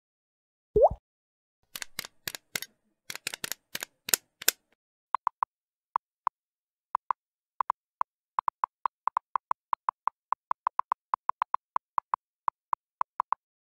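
Slideshow sound effects: a single rising 'plop' blip about a second in, then a quick cluster of sharp clicks. After that comes a long run of short, same-pitched typewriter-style ticks, about three or four a second, as text types onto the screen.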